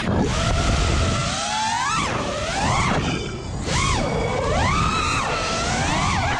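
Onboard audio of a 5-inch FPV quadcopter's Emax Eco brushless motors and propellers whining, the pitch swooping up and down again and again as the throttle is punched and cut, dropping low briefly about halfway through. Wind rush on the onboard camera's microphone runs underneath.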